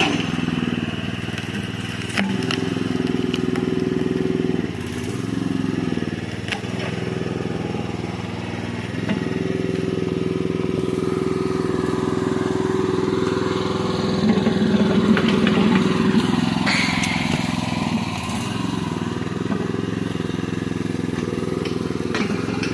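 Towable backhoe's small engine running steadily, its hydraulic note shifting as the controls are worked under load while digging. Occasional knocks and crunching from the bucket in the ground.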